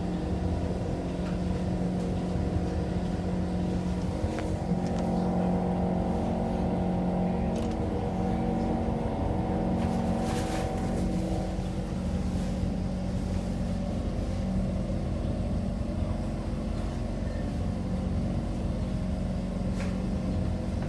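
Steady running noise inside a C151 MRT train: a continuous low rumble with a steady motor hum and a few faint clicks from the wheels and track.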